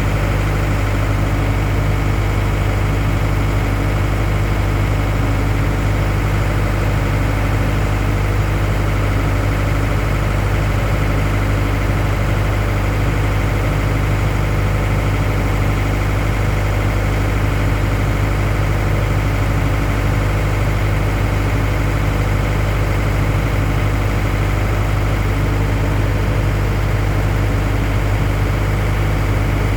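A machine running with a steady low hum that does not change.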